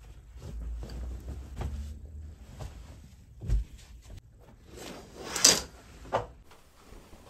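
Household handling sounds: a low rumble, a dull thump, then a short loud sliding rush and a sharp knock, like something being slid and set down or shut.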